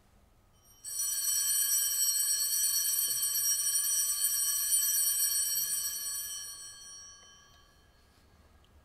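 Altar bells (sanctus bells) shaken, ringing brightly for about five seconds and then dying away: the bells rung at the elevation of the consecrated host.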